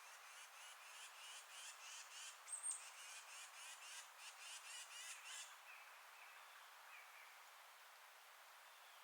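A wild animal's rapid, rhythmic call, about five pulses a second, that stops after about five and a half seconds, with a brief high whistle near its middle. Under it runs a soft, steady hiss of wind in the forest.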